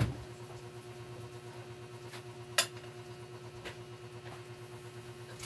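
A few light clinks and taps of small hard objects, the sharpest about two and a half seconds in, over a steady low electrical hum.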